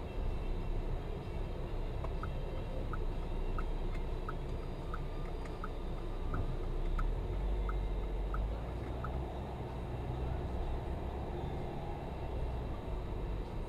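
Car cabin noise picked up by a dashcam: a steady low rumble of engine and road. From about two seconds in, a turn-signal indicator ticks about one and a half times a second for about seven seconds, about eleven ticks, as the car slows for a turn at a junction.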